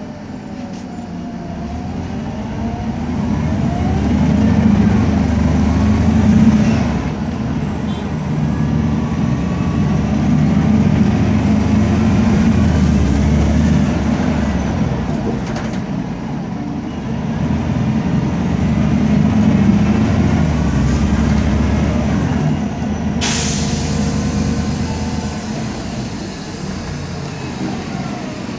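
MAN Lion's Classic CNG city bus heard from inside, its CNG engine and ZF automatic gearbox pulling away and easing off three times, under a differential whine that rises and falls with road speed, the loud differential noise the bus is known for. A short hiss of air about four-fifths of the way through.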